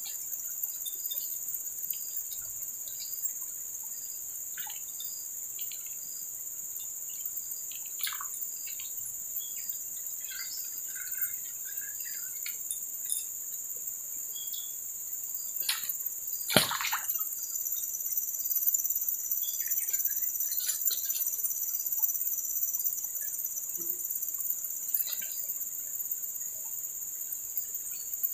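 Steady high-pitched drone of insects in riverside forest, with scattered short bird chirps. A single sharp knock sounds a little past halfway.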